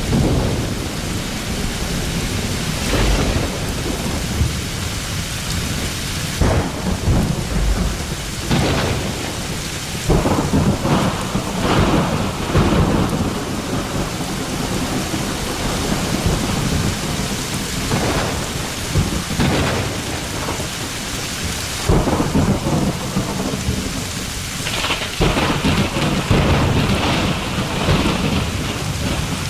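Thunderstorm: steady heavy rain with thunder rumbling and swelling several times over it.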